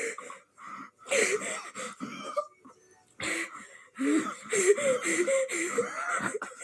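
Two girls laughing hard in wheezing, breathless fits, bursts of high laughter broken by short gasps and pauses.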